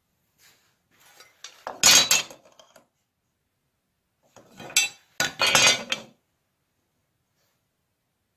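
Metal parts clattering and clinking as they are handled, in two short bursts a few seconds apart.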